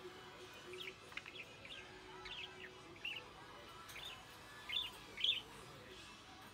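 Budgerigar chattering in a run of short, quick chirps, the two loudest about five seconds in. An excited, contented warble that comes close to talking without forming words.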